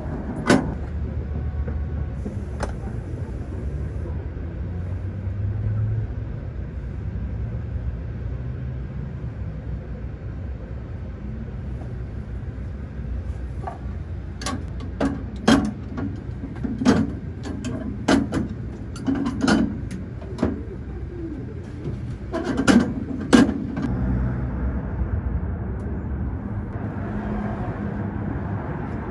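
Steady street traffic rumble, with a run of sharp knocks and clacks from about halfway through until near the end.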